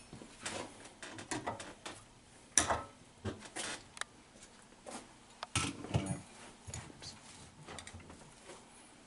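Nipper pliers snipping off the protruding ends at the top of a sling chair frame: a series of sharp snips and clicks, the loudest about two and a half seconds in, with handling noise between.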